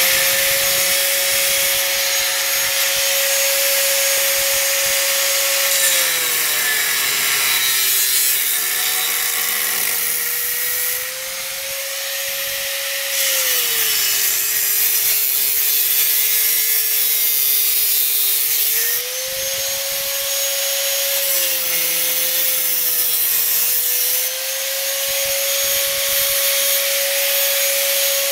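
Handheld electric power tool running without a break, its motor tone sagging lower several times under load and recovering, over a steady hiss of abrasive cutting or grinding on the car's metal bodywork.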